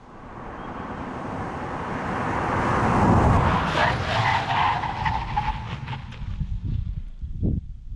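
2020 Kia Seltos S with its 2.0-litre four-cylinder petrol engine and CVT auto driving past. Engine and tyre noise swell to a peak about three seconds in, then fade as the pitch drops.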